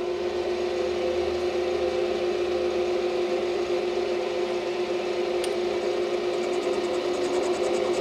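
Electric motor of a metalworking machine tool running steadily with a constant-pitched hum, with a single small click about five and a half seconds in.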